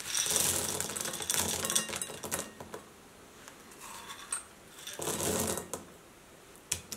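Frozen green peas poured into a glass bowl of semolina, clattering and clicking as they land. A dense patter for the first two seconds or so, then a second, shorter pour about five seconds in.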